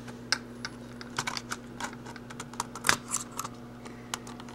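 Sony Vaio VGN-T250 laptop keyboard being pried up and lifted out of its frame: a run of irregular light plastic clicks and rattles, with a louder knock about three seconds in, over a faint steady hum.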